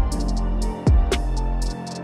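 Electronic background music with a steady beat: deep drum hits that drop in pitch, a sustained bass and short high ticks.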